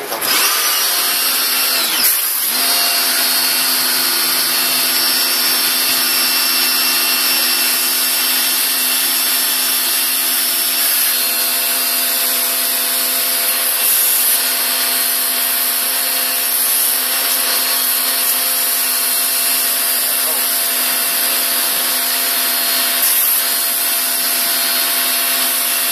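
Makita HW102 electric pressure washer comes on at the start and runs steadily: the universal motor and pump whine, and the high-pressure water jet hisses against the car's bodywork. There is a sharp click about two seconds in.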